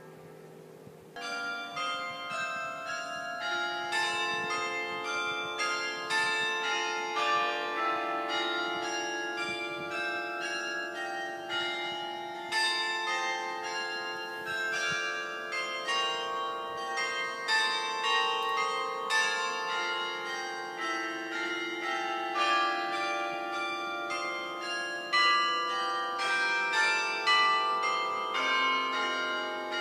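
Church tower carillon playing a tune: bells struck one after another, several a second, their long ringing overlapping, starting about a second in.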